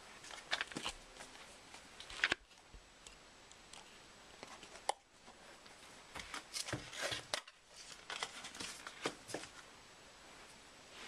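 A small cardboard box being handled and opened by hand: scattered rustles, taps and clicks of cardboard flaps and packaging, with a sharper knock about two seconds in.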